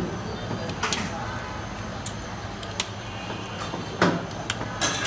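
Quail eggs being cracked one after another on the edge of a steel bowl: a sharp click of shell about every second, five or so in all, over a steady low hum.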